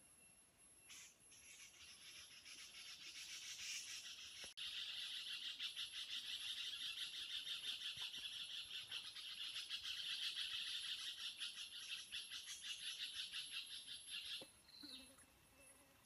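Insects buzzing in a rapid pulsing chorus that swells up about a second in and stops abruptly near the end. A short call that falls in pitch follows it.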